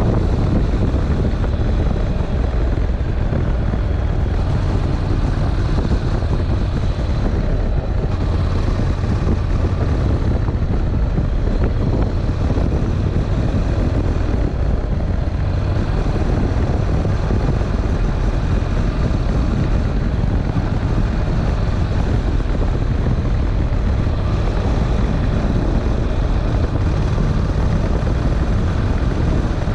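Honda NC700X's parallel-twin engine running steadily under way, with wind rushing over an unshielded microphone.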